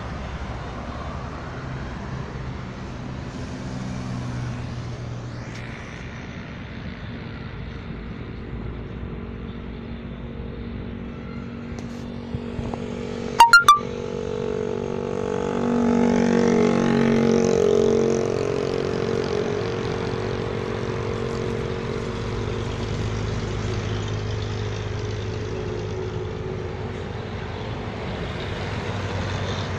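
Heavy trucks going by on a highway: continuous engine and tyre noise, swelling as the loudest one passes a little past the middle and easing afterwards. A short cluster of sharp clicks comes just before it.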